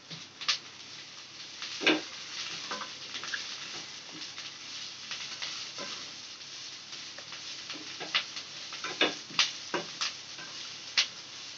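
Ponnaganti greens sizzling in hot oil in a frying pan as a wooden spatula stirs them, with sharp knocks and scrapes of the spatula against the pan. The knocks are loudest about two seconds in and come several times near the end.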